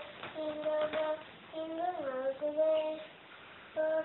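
A young girl singing in long held notes, one sliding down in pitch about halfway through, with a brief pause near the end.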